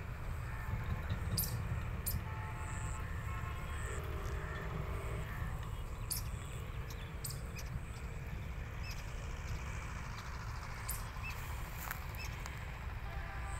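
Rural field ambience: a steady low rumble with scattered short, high chirps and a few distant calls from about two to five seconds in, typical of birds such as crows around farmland.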